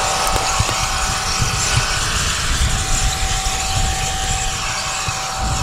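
Farm tractor and planter running steadily, a constant whine over an engine hum. Wind buffets the microphone with an irregular low rumble.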